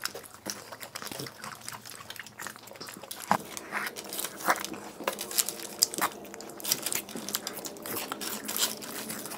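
Crisp wafer ice cream cones being bitten and chewed, giving irregular sharp crunches and crackles.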